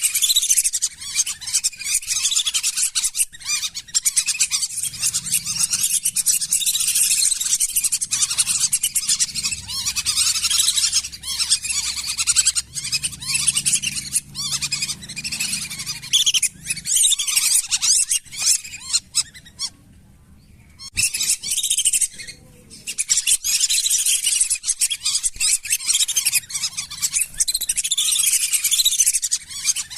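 A flock of lesser whistling ducks calling, a dense, unbroken stream of high whistles and chirps that briefly falls away about two-thirds of the way through before resuming.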